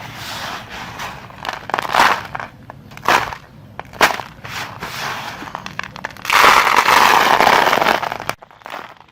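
A bar of soft soap being cut and crumbled with a knife: crackly crunching with sharp snaps, then a longer, louder stretch of crunching about six seconds in.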